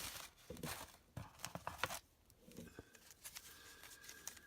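Packaging and printed items being handled, with crinkling and rustling: several sharp crinkles in the first two seconds, then fainter rustling.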